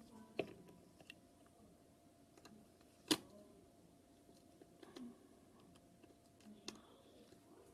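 A few small, scattered clicks and taps of tools and parts against the phone, the sharpest about three seconds in, over a quiet background.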